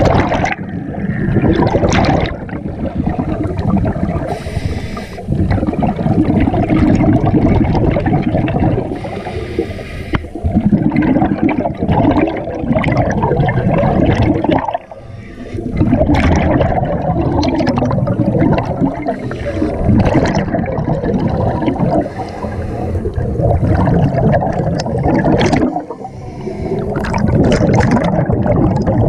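Scuba diver's exhaled air bubbling out of the regulator and rushing up past the camera underwater, in long loud surges with short breaks between breaths.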